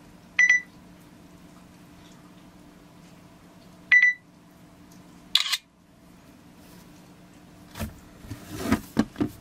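Asus Zenfone 3 camera app giving two short electronic beeps about three and a half seconds apart, then a brief shutter sound as a photo is taken. Near the end come several clicks and rustles of the phone being handled, over a faint steady hum.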